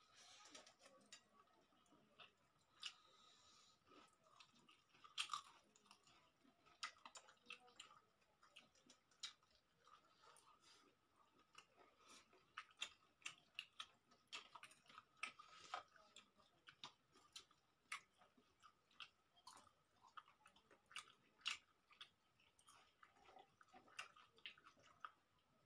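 Faint eating sounds: chewing and lip smacks as rice and chicken curry are eaten by hand, with irregular small clicks of fingers and food on steel plates.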